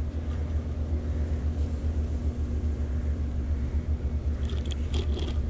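Steady low rumble with a faint constant hum, and a few light clicks near the end.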